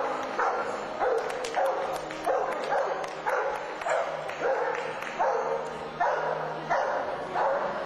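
A dog barking over and over at a steady pace, about two barks a second.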